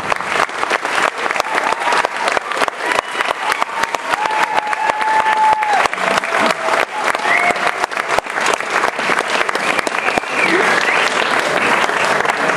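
Audience applauding steadily, a dense, continuous clapping, with a few voices calling out over it.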